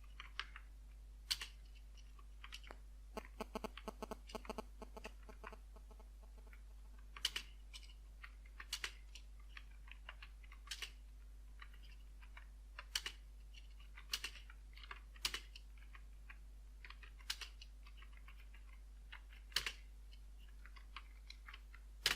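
Computer keyboard keys clicking irregularly as someone types, with a quick run of keystrokes about three seconds in, then slower, scattered presses. A faint steady low hum lies underneath.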